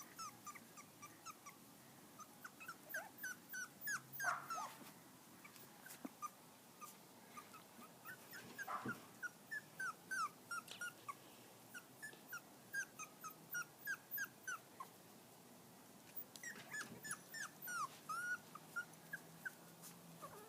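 Five-week-old poodle–shih tzu mix puppies whimpering in runs of short, high squeaks that drop in pitch, with a brief lull about three quarters of the way through.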